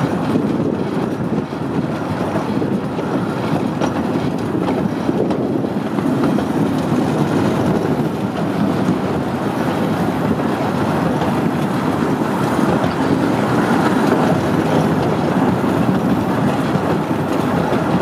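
Ride-on miniature amusement-park train running steadily along its track, heard from the rear open car: the continuous noise of its wheels on the rails.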